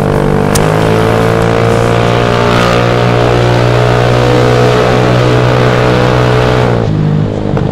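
Vespa automatic scooter's single-cylinder four-stroke engine through a racing exhaust, running under steady throttle with a fierce, aggressive note. About seven seconds in the throttle closes and the note drops.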